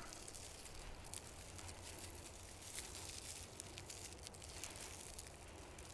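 Faint rustling and crinkling of dry grass stems being folded and wrapped by hand, with a few small ticks.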